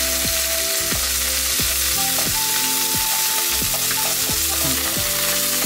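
Pieces of raw meat sizzling in oil in a nonstick frying pan over too high a heat, with a spatula stirring them. The sizzle is a steady hiss.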